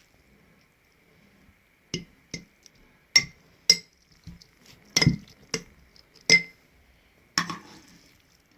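A spoon clinking against a glass jar as a thick fig and olive-oil mixture is spooned into it: about nine sharp, irregular clinks.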